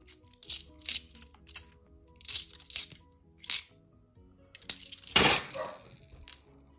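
Bimetallic £2 coins clinking against each other as they are handled and sorted: a dozen or so sharp, ringing chinks, with a longer shuffling clatter about five seconds in. Faint background music runs underneath.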